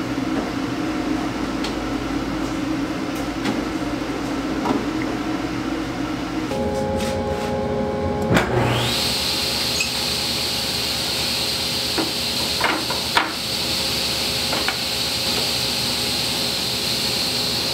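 Sliding table saw switched on about halfway through: the motor and blade spin up with a quickly rising whine, then run steadily at speed with a high whine. A few light knocks of wood being set against the fence follow. Before the start, a low steady hum.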